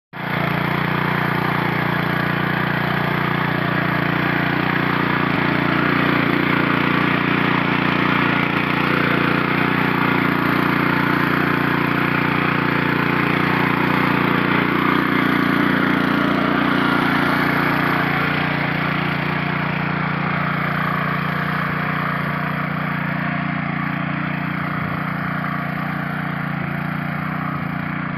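Honda FQ650 power weeder's petrol engine running steadily under load as its tines till the soil, a little quieter in the last third.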